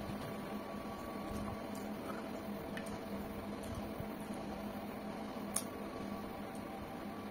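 Soft chewing and mouth sounds of someone eating fried watermelon rind, over a steady low hum, with one sharp click about five and a half seconds in.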